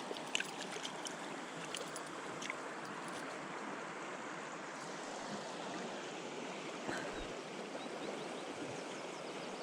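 River water rushing steadily, with a few faint clicks in the first couple of seconds.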